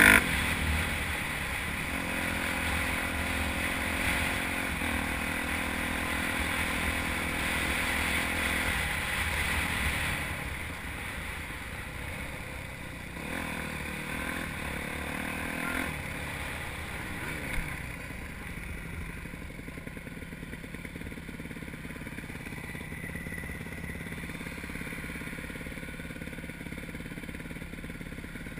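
Dirt bike engine running under way on a dirt road, heard from the rider's helmet with wind noise. It is louder in the first third and then eases off, becoming quieter and steadier from about two-thirds of the way through, with one short click.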